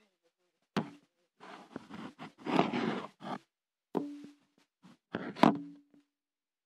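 Phone handled right against the microphone: a few sharp knocks, the loudest near the end, with rubbing and rustling of clothing in between.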